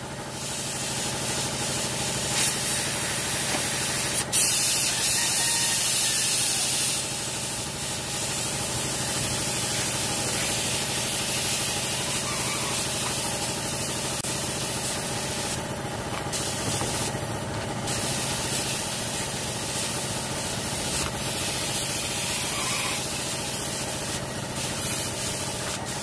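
Gravity-feed spray gun hissing steadily as it sprays a touch-up coat of paint onto a car bumper, broken by a few short pauses between passes in the second half. A steady motor hum runs underneath.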